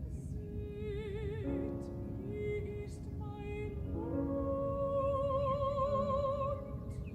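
Background music: slow, held melody notes with vibrato, sung or played in an operatic style, over a steady low rumble.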